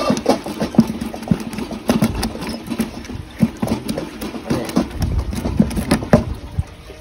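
Live freshly netted fish thrashing in a plastic bucket, irregular thumps and knocks against its walls and floor.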